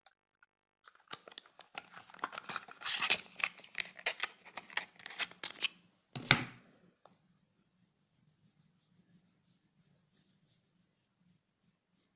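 Crackling and rustling of cosmetics packaging being handled, ending in one sharp click. After that comes a faint, fast, rhythmic light rubbing.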